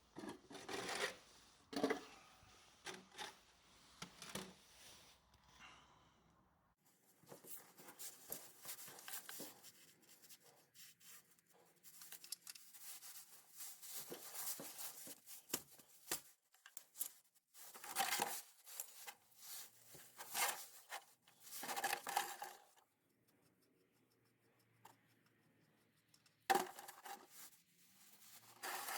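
Irregular bursts of scraping, rustling and clicking handling noises, with pauses between them.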